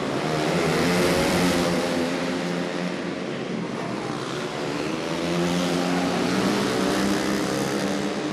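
Yamaha 450cc flat-track race motorcycles running hard around a dirt oval, engines revving up and down through the turns. They are louder as they come near about a second in and again around five to seven seconds in.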